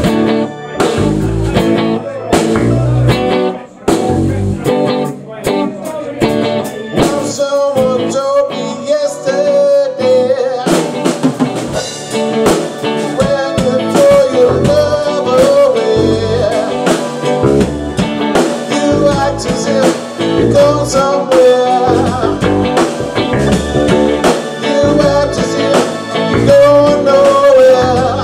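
A live band playing electric guitar, bass guitar and drum kit, with a man singing lead from several seconds in, after a short instrumental start.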